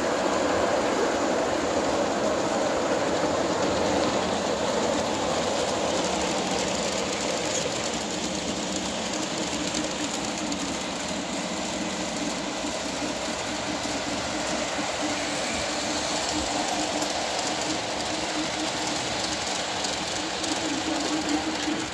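Model trains running on metal track, a steady rolling noise of wheels on rails with their motors.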